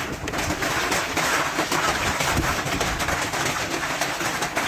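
Storm noise: heavy rain and hail pelting hard and unbroken, with wind rumbling on the microphone.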